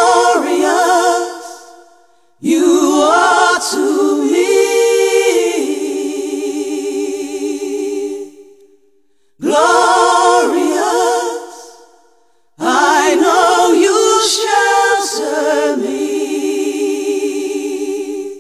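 Unaccompanied singing, several voices in harmony with vibrato, in four phrases separated by short pauses; the first and third phrases sound alike.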